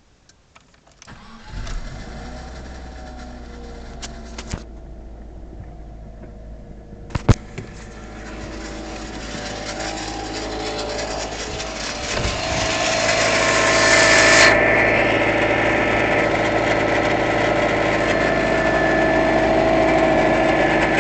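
Subaru Legacy's EJ20Y turbocharged flat-four engine starting about a second in and running, growing louder over several seconds and then holding steady with a whine. The owner's complaint is a knocking turbocharger. A few sharp clicks sound in the first half, one loud one near the middle.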